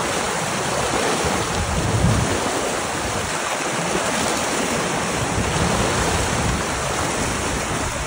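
Shallow river water rushing and splashing over a stony rapid crowded with salmon swimming upstream to spawn. The sound is a steady wash of water, with wind rumbling on the microphone.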